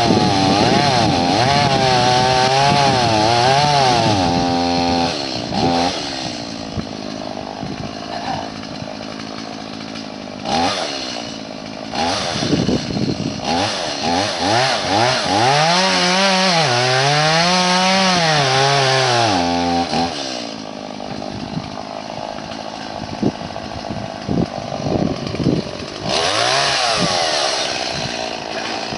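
Two-stroke Stihl chainsaw revving up and down through cuts, twice dropping back to a lower, quieter running between bursts.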